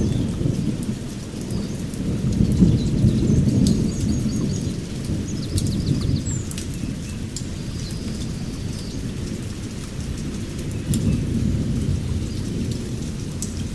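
Thunderstorm ambience: low rolling rumble that swells and fades, with rain noise and a few faint high bird chirps.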